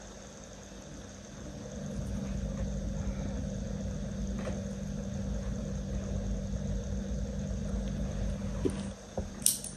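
A low, steady rumble that swells up over the first couple of seconds and drops away near the end, over a faint constant hum.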